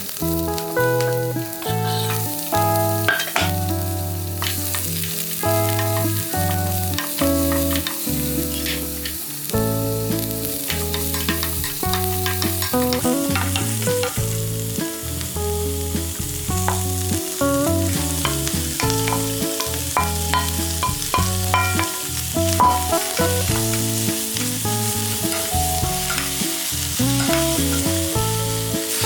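Vegetables sizzling as they fry in a pan, with scattered clicks, over background music with a bass line.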